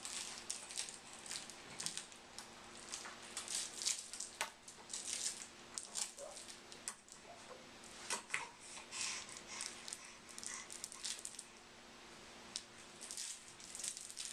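Soft, irregular rustling and light clicking of a baby play gym's hanging toys: a plush elephant and its plastic link rings jostle on the arch as a baby grabs and pulls at them.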